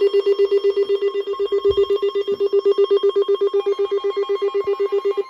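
Weather radio alert alarm: a loud beeping tone pulsing about eight times a second, cutting off sharply at the end. Under it runs a steady tone near 1 kHz, the warning alert tone of a NOAA Weather Radio broadcast that comes before a severe thunderstorm warning.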